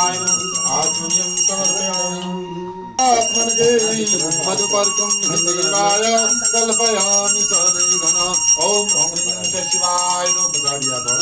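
Puja hand bell rung rapidly and without pause over devotional music, louder from about three seconds in.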